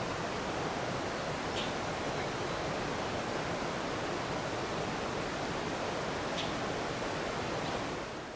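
Steady outdoor rushing background noise, with two faint, brief Oriental dollarbird calls: one about a second and a half in and one after about six seconds.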